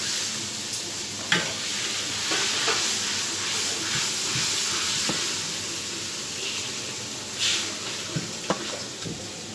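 A steady hiss, with a few soft knocks as silicone cups of steamed banana cake are set down one by one on a plastic tray.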